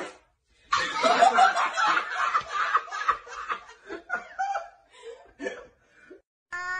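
Several people laughing: a loud burst of laughter about a second in, then broken chuckles that die away.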